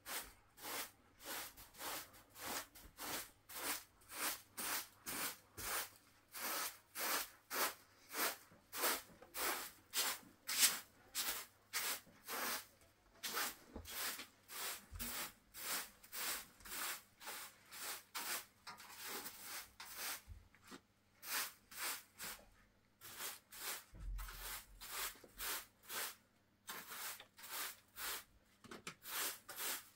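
Short straw hand broom sweeping a carpet and bare floor in quick strokes, about three a second, with a few brief pauses.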